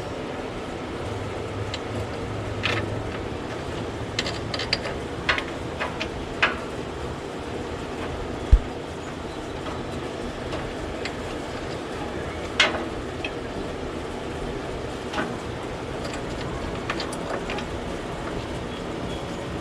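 Irregular metallic clicks and knocks of hand tools, a spark plug socket and wrench, working on a lawn mower engine's spark plug, one heavier knock about eight seconds in, over a steady background rush.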